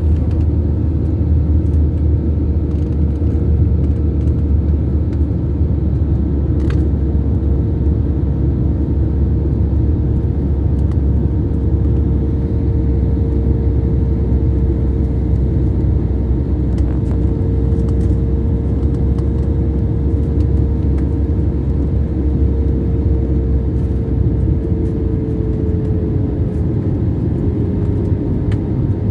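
Airliner jet engines and airflow during the landing approach: a loud, steady rumble with a held hum tone that sinks slightly in pitch near the end.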